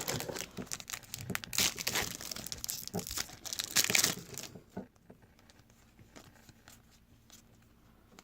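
Trading-card pack wrapper crinkling and tearing open, a dense crackle lasting about four and a half seconds with two louder surges, then only a few faint clicks.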